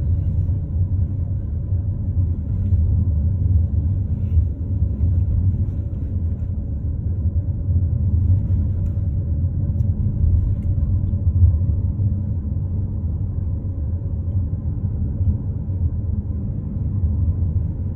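Steady low rumble of a car's engine and tyres heard from inside the cabin, driving slowly along a paved road.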